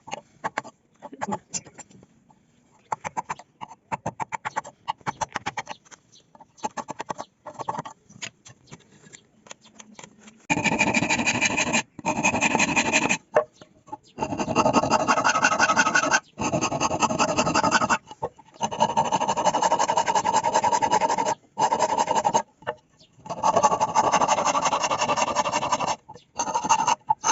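A hand tool scraping and rasping on wood. Short scratchy strokes come first, then from about ten seconds in there are long continuous rasping passes with brief breaks between them.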